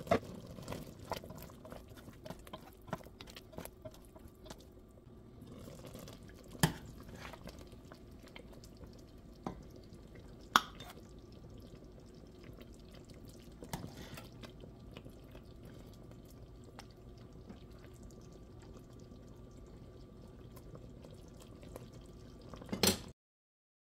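Thick chicken-and-dumpling gravy bubbling and dripping in a stainless steel pot, with scattered sharp clinks of a ladle against the pot and bowl as it is served.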